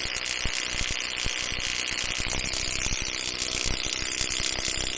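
Neiko 10880A 20-volt cordless 3/8-inch-drive impact wrench hammering steadily and rapidly on a lug nut torqued to 130 ft-lb, driving a chrome socket straight on the anvil as it works to break the nut loose.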